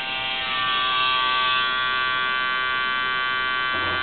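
Small electric pump running with a steady hum, pumping water into a row of HHO generator cells to fill them.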